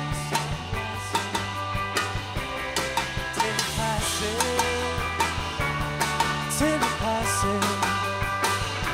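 Live indie pop band playing an instrumental passage: drum kit beat under electric guitars.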